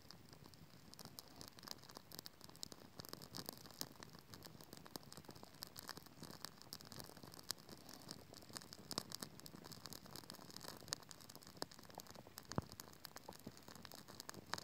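Small wood fire crackling under a kettle, with frequent irregular pops and clicks over a steady soft hiss.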